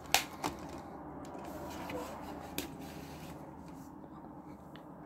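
Plastic Blu-ray case being handled, with a couple of sharp clicks just after the start, then soft rustling and handling noise and one more click midway.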